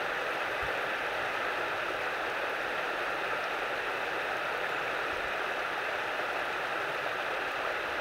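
Steady, even rush of running water from a stream.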